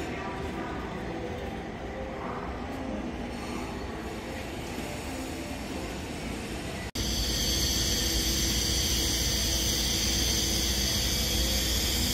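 Steady railway-station concourse ambience with faint tones in it. About seven seconds in it cuts off suddenly and louder, steady outdoor street noise takes over.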